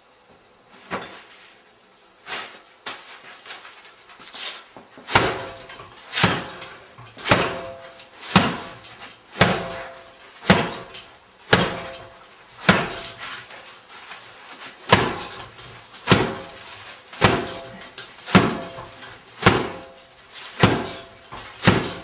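Closed walking-stick umbrella of plastic and fibre striking a hanging heavy punching bag, about one blow a second, some twenty in all. The first few blows are lighter and they get harder from about five seconds in.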